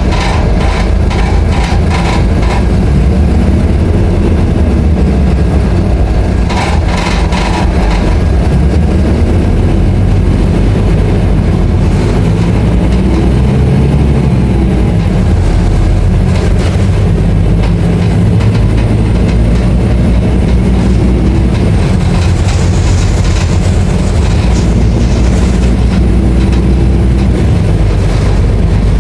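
Scania K310IA articulated bus's diesel engine running steadily under way, with clusters of rattling clicks at the start and again about seven seconds in.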